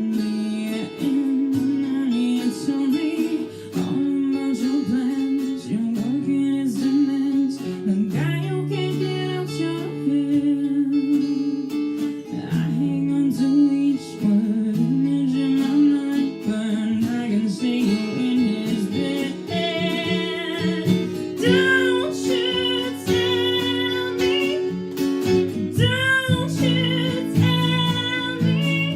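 A song performed with strummed guitar and a singing voice; the voice holds long, wavering notes in the second half.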